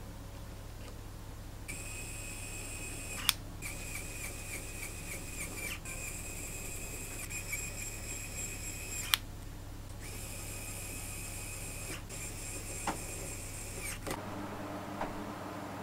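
Mini electric screwdriver motor whining as it drives small screws into the crankshaft main-bearing caps of a model V8 engine block. The high-pitched whine runs in several bursts of a few seconds with short breaks, and two sharp clicks come between runs.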